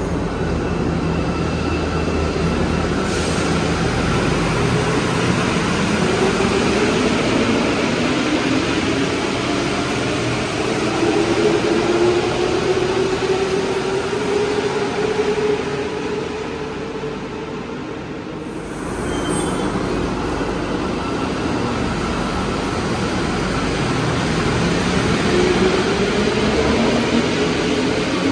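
Rubber-tyred metro train's traction motors whining and rising slowly in pitch as the train accelerates, over the steady rumble of the running train. After a short break about two-thirds of the way through, another rising whine builds as a train accelerates again.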